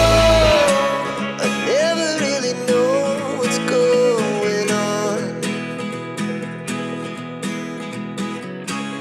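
Background song with singing over guitar accompaniment; the heavy bass drops out about half a second in, leaving the voice and regularly plucked guitar.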